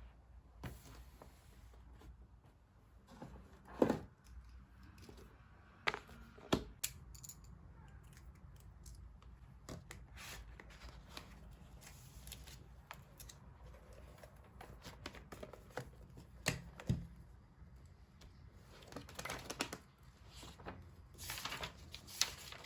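Quiet handling sounds at a desk: a few light knocks and clicks of objects being set down, and near the end a stretch of rustling like paper being handled, over a low steady hum.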